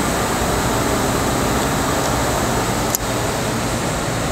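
Steady whooshing air noise of a workshop's background, with a single click about three seconds in.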